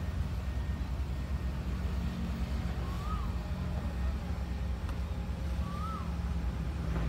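Passenger train rolling slowly away from a station, a steady low rumble of the train running on the rails. Two short chirps, rising then falling, come about three and six seconds in.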